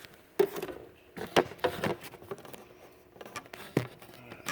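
Handling noise: scattered light clicks and knocks, about a dozen, as small hard objects are picked up and set down, with a sharper knock just before the end.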